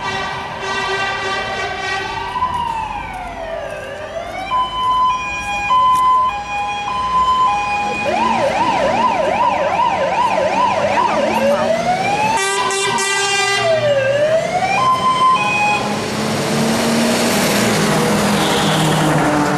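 Fire engine's electronic siren cycling through its patterns: a slow rising-and-falling wail, a two-tone hi-lo, and a fast yelp, then back to wail and hi-lo. Near the end a loud rush of engine and road noise builds as the truck comes close.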